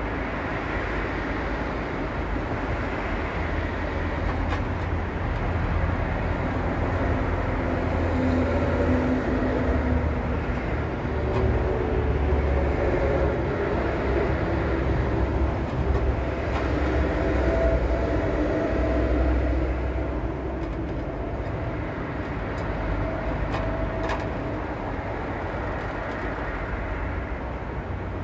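Steady low rumble of motor vehicles, with faint engine tones drifting up and down in pitch and a few faint clicks.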